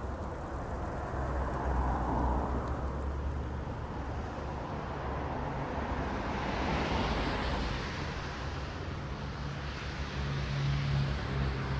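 Road traffic: cars passing, a steady low engine hum with tyre and road noise that swells as vehicles go by, about two seconds in and again through the second half.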